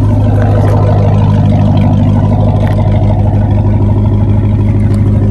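Dodge SRT Hellcat's supercharged V8 running at a steady speed, a loud, constant low drone that holds one pitch throughout.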